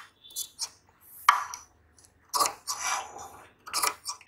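Metal tailoring scissors snipping through fabric fused with buckram, several short sharp snips at uneven intervals.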